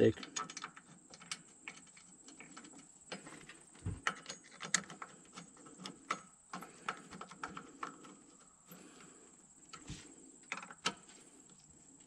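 Light, irregular clicks and taps of a hand screwdriver and small plastic and metal parts being handled while screws are driven back in at a truck's steering column.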